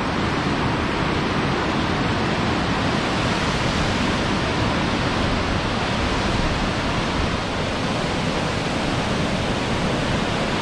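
Large waterfall with heavy flow, a steady, dense rush of falling water with no break or change.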